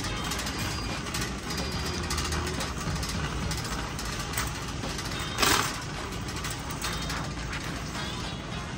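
Metal shopping cart rattling as it is pushed over a smooth concrete floor, with a louder clatter about five and a half seconds in.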